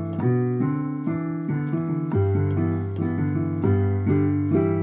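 Keyboard piano playing an instrumental passage: repeated chords over held bass notes, the bass changing about two seconds in and again near the end.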